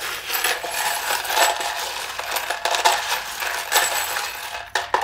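A handful of small metal charms shaken and rattled together for a charm cast: a dense, continuous jingling clatter that stops shortly before the end.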